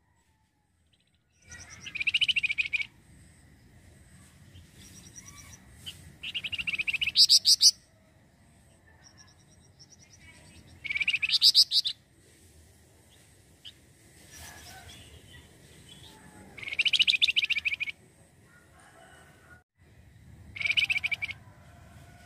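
A flamboyan (wergan jawa) songbird gives five loud, high, rattling chatters of rapidly repeated notes, each about a second long and four to five seconds apart. A faint steady background hum runs underneath.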